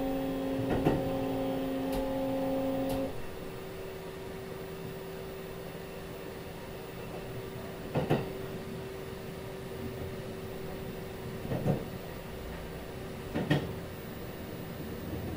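Kintetsu 22000 series ACE train running, heard from the rear car's deck: the Mitsubishi GTO VVVF inverter's steady tones stop about three seconds in as power is shut off, leaving the rumble of the train coasting with one low tone. Sharp clacks of the wheels come over rail joints about a second in and again three times later.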